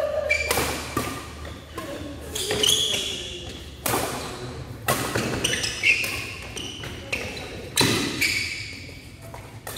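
Badminton doubles rally: rackets striking the shuttlecock with sharp cracks every second or two, mixed with short squeaks of shoes on the court floor.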